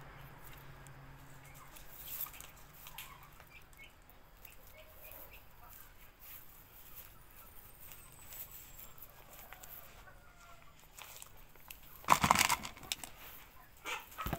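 Miniature grass broom's dried grass bristles swishing loudly as the broom is shaken through the air, twice near the end, after a stretch of faint rustling and small ticks from hands working the plastic binding strip.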